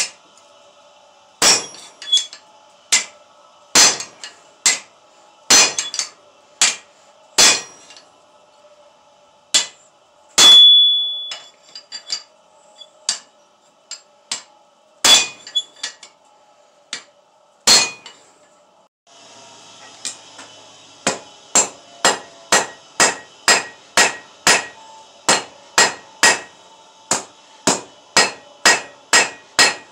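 Hand hammer striking red-hot steel on an anvil, with a short metallic ring after each blow. At first the blows are single and uneven, about one a second, and one loud strike about ten seconds in rings high for a moment. After a pause the blows come in a steady run of about two a second over a faint hiss.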